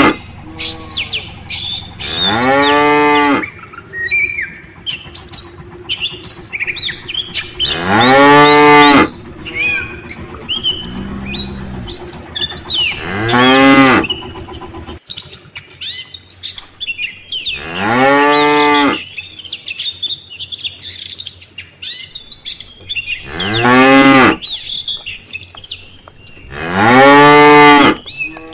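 Cattle mooing: six loud, drawn-out moos about every four to six seconds, each rising then falling in pitch, with a lower, quieter moo near the middle. Small birds chirp between the moos.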